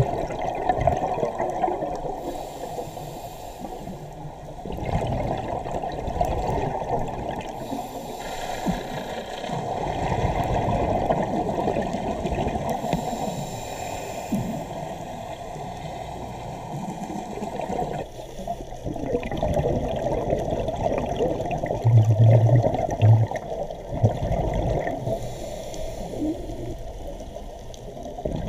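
Scuba diver's breathing heard underwater through a GoPro's waterproof housing: muffled gurgling and rushing of regulator breaths and exhaled bubbles, swelling and fading every several seconds. Two short low knocks come about three-quarters of the way through.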